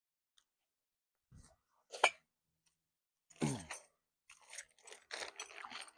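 Deer feeder parts and packaging being handled during assembly: a sharp click about two seconds in, then irregular rustling and scraping over the last couple of seconds.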